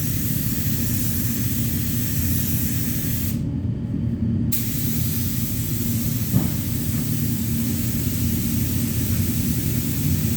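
Air spray gun hissing steadily as primer is sprayed, over a steady low rumble. The hiss stops for about a second a few seconds in and then resumes, and there is a single short knock a little later.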